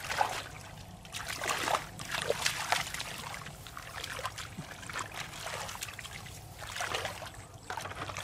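Hands splashing and squelching through shallow muddy water, groping in the mud for catfish: irregular wet splashes and sloshes.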